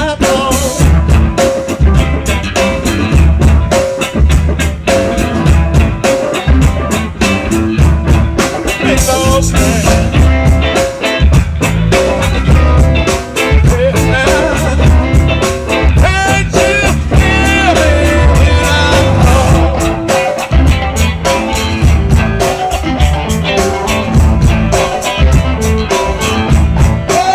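Live blues band playing electric guitars and drum kit with a steady beat.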